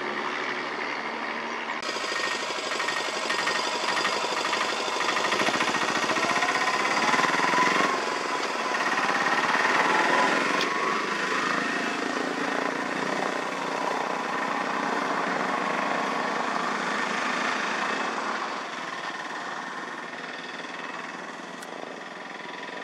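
Engine of a three-wheeler auto-rickshaw running as it drives up close, loudest about halfway through with a brief rise in pitch, amid other road traffic.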